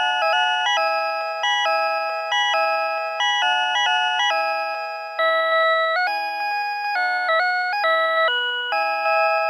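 PATLITE electronic annunciator on a railway platform playing the signal-clear tone, a looping melody of chime-like electronic notes. It tells the crew of a one-man train that the departure signal has cleared, and it keeps sounding for as long as the signal stays clear.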